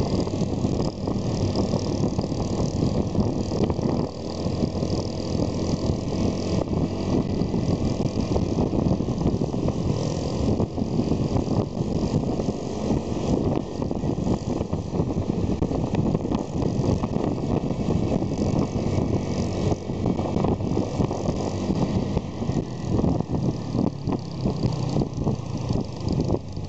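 Motorcycle on the move at road speed: its engine running steadily under a continuous rush of wind noise on the microphone.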